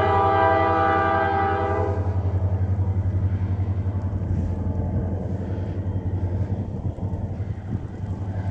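Freight diesel locomotive sounding its multi-note air horn as one chord for about two seconds, then the horn cuts off, leaving the locomotive's deep engine rumble as the train passes.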